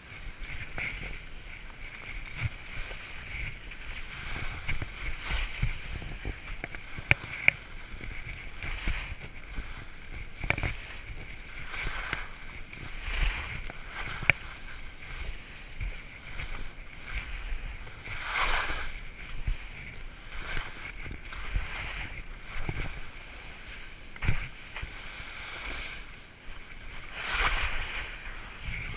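Skis hissing and scraping through soft, slushy spring snow on a descent, the sound swelling with each turn and a few sharp clicks of ski chatter about a quarter of the way in.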